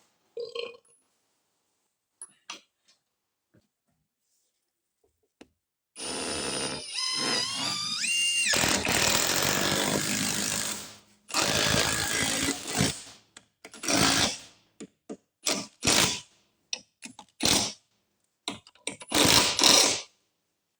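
Handheld power drill: after a few faint clicks, it spins up with a rising whine about six seconds in and runs for about five seconds, then gives several short bursts.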